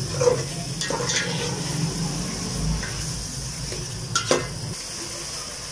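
Metal spoon stirring and scraping chopped carrots and peas in an aluminium pot, with a few sharp clinks against the pot and a light sizzle of frying. A low hum underneath stops about five seconds in.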